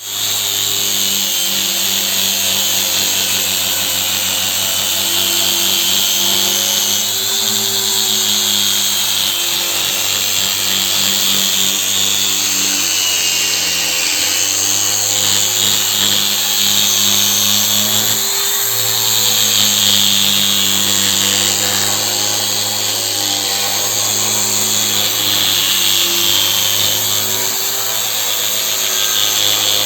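Electric orbital sander with a dust collector running continuously: a steady motor hum, its pitch dipping slightly now and then, under a strong hiss.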